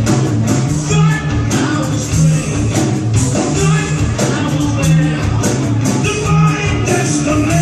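Heavy rock band playing live: distorted guitars, bass and drums in a repeating heavy riff.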